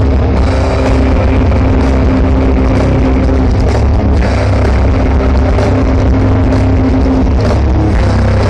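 Grindcore band playing live through a large outdoor PA, heard from within the crowd: a loud, dense, unbroken wall of heavy-metal music with drums and a heavy bass.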